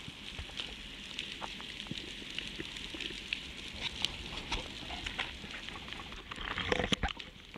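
Underwater ambience: a continuous crackle of fine clicks and hiss, with a denser cluster of louder clicks and knocks about seven seconds in as the diver works against the rock.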